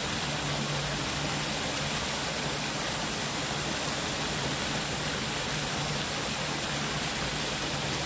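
Steady rush of running water, an even hiss with no breaks.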